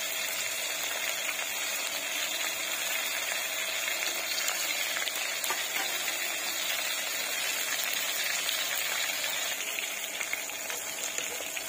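Pieces of big fish frying in hot oil in a kadai, a steady sizzle with faint crackles.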